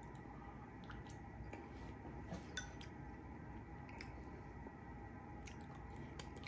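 Quiet close-up eating sounds: soft chewing, with a few sharp clicks of a metal fork against a plate and a glass bowl, the strongest about two and a half seconds in. A steady low hum runs underneath.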